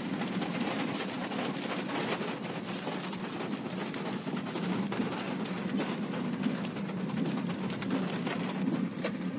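Car cabin noise while driving in heavy rain: a steady engine and road rumble with raindrops ticking on the roof and windscreen.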